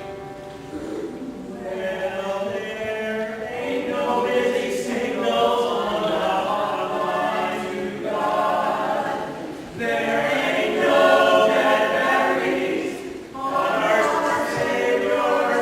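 Youth choir singing, in phrases broken by short pauses.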